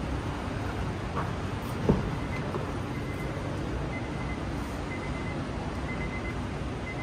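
A sharp click of a car door latch about two seconds in, as the 2012 Honda Accord's front door is opened, over a steady background hum. Faint short high beeps come and go afterward.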